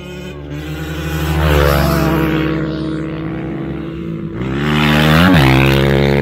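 Off-road motorcycle engine revving hard as the bike accelerates, its pitch climbing. About five seconds in, the pitch shoots up and drops sharply, as at a gear change or throttle blip.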